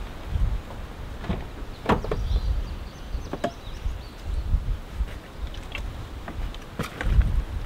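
Pickup truck cab door opened, then clicks and knocks of gear being handled in the cab, over a recurring low rumble.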